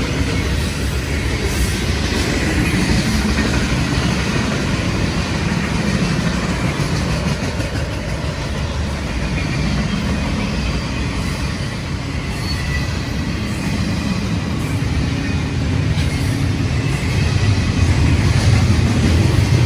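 Freight train rolling past at speed: a steady rumble of wheels on rail, growing a little louder near the end.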